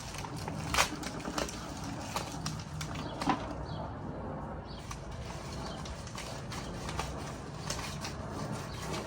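Small hard pieces and packaging being handled during an unboxing: scattered light clicks and knocks over a steady background noise, most of them in the first few seconds.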